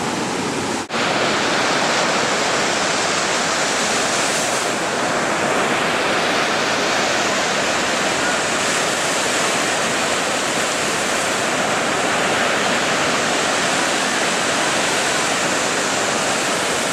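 Steady rushing noise of sea surf, with a brief drop-out about a second in.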